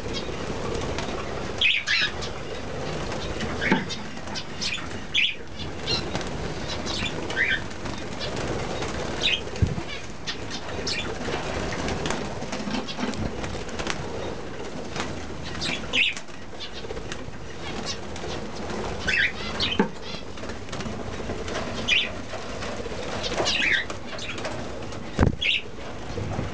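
Budgerigars fluttering their wings, with short high chirping calls every second or two.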